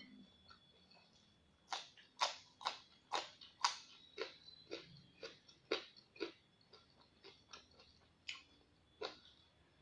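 Close-up chewing of crisp raw vegetables: a run of sharp crunches about two a second, starting a couple of seconds in and thinning out to a few single crunches near the end.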